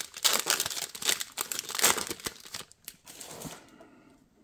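Foil wrapper of a Phoenix basketball trading card pack crinkling as it is torn open, in dense crackles for about the first three seconds, then dying down to a faint rustle near the end.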